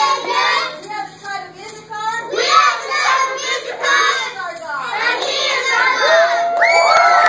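A group of children chanting a cheer together in a rhythmic, sing-song way, breaking into long drawn-out shouts about six seconds in.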